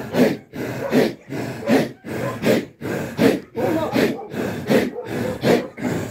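Sufi 'imara (hadra) dhikr: a circle of men chanting together in forceful rhythmic breaths, a steady pulse of about four beats every three seconds.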